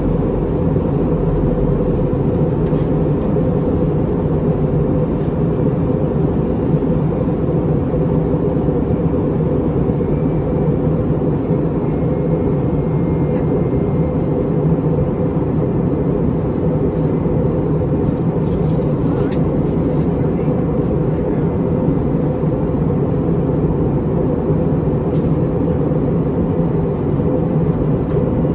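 Steady cabin noise inside an Airbus A321-231 in flight on descent: a dense, unchanging low rumble of airflow and engines.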